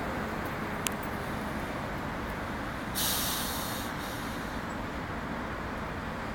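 A burst of compressed-air hiss, just under a second long, about three seconds in from the air brakes of a ChS2t electric locomotive coupled to a passenger train. It sits over a steady low rumble, with a single sharp click about a second in.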